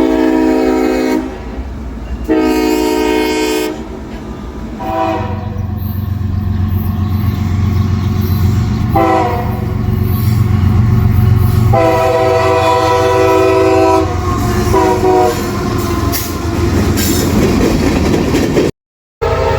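Multi-note locomotive air horn sounding a series of chords for a horn show, some long and some short, about six in all. A diesel locomotive's engine rumble and the train's wheels run under the horn as it passes. The sound cuts out briefly near the end.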